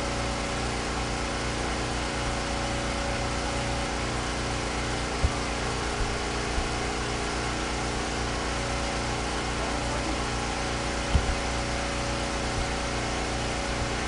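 Steady machine hum with a low drone that pulses evenly. A few soft clicks come through, about five, six and eleven seconds in.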